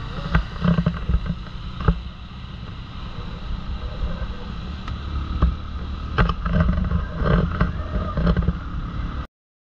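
Motorcycle riding at road speed, heard from the bike itself: engine running under heavy wind noise on the microphone, with scattered thumps. The sound cuts off suddenly just before the end.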